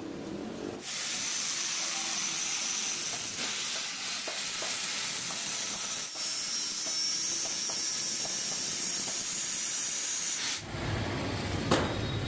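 Handheld angle grinder with a cut-off disc slicing through steel plate: a steady hiss with a high whine, starting about a second in. It stops suddenly near the end, and a low rumble with a couple of sharp knocks follows.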